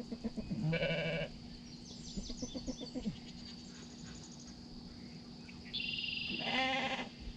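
Sheep bleating: a short, quavering bleat about a second in, and a longer bleat near the end that drops in pitch.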